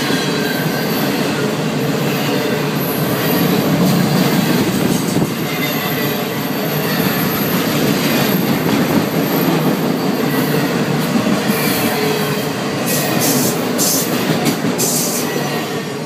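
Freight cars of an intermodal train, loaded with truck trailers, rolling past at speed with steady wheel-on-rail noise. The noise eases off near the end as the last cars go by.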